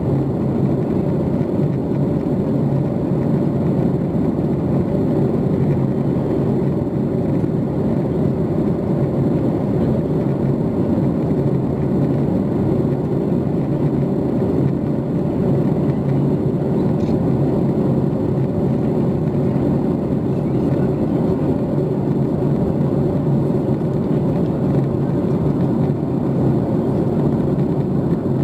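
Steady cabin noise of a Boeing 737 MAX 8 in flight on approach: its CFM LEAP-1B jet engines and the airflow heard from inside the cabin, a constant low rush with a steady hum.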